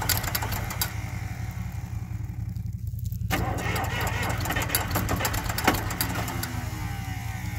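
John Deere 510 tractor engine running just after a cold start, a steady low drone; its higher clatter drops out briefly about three seconds in, then comes back.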